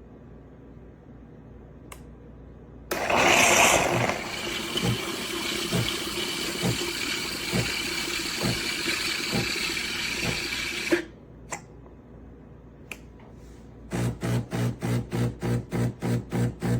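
Espresso machine running: a sudden loud hiss about three seconds in settles into a steady hissing hum with a soft knock about once a second, and stops abruptly after about eight seconds. Near the end comes a rapid pulsing buzz, about three or four pulses a second.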